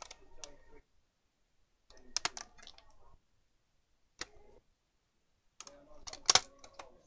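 Hard plastic clicking and clattering in four short bursts, the sharpest click about six seconds in, as the plastic back case of a Samsung RV511 laptop is worked loose.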